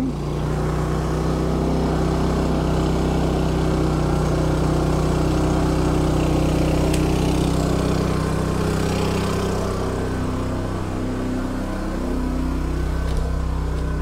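Champion 3400-watt dual fuel inverter generator running steadily on propane with economy mode off, under about 1.6 kW of load from charging a battery power station. Its engine note shifts briefly near the end.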